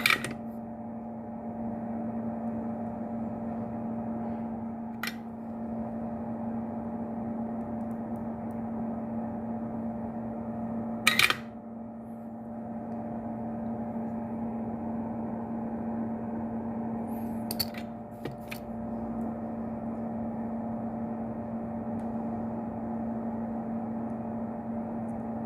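A steady mechanical hum with a low tone. Over it come a few short sharp clicks: one right at the start, one about five seconds in, a louder double click about eleven seconds in, and a short cluster around seventeen to eighteen seconds.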